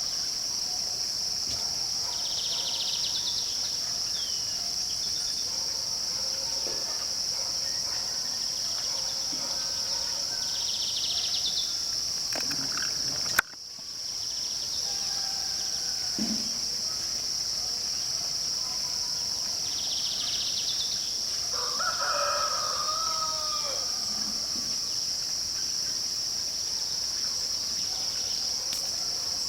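Steady high-pitched insect drone with scattered bird calls over it. About 22 s in there is one longer rooster-like crowing call. About halfway through, a sharp click comes as the sound briefly drops out.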